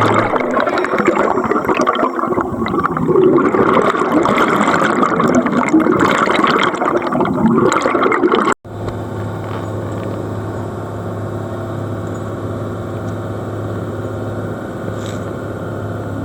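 Underwater sound of a diver's exhaled air bubbles rushing and gurgling. A sudden cut comes about halfway through, followed by a steadier, quieter wash with a low hum.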